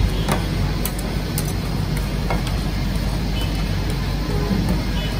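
Metal spatulas scraping and tapping on a steel ice cream roll cold plate, a few sharp clicks over a steady low hum.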